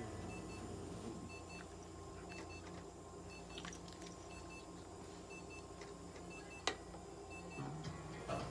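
Electronic beeping from clinic equipment: a short, high double beep repeating about once a second. A single sharp click about two-thirds of the way through.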